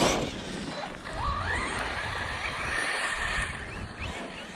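Electric whine of an Arrma Kraton ExB's brushless motor. It rises in pitch, holds steady for about a second and a half, then stops. The driver takes this cut-out in mid-air for the overheated motor locking up.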